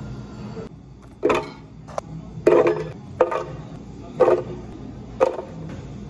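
Drink-making clatter: a cup and utensils knocking and clinking, about six sharp hits with short ringing tails, over a steady low hum.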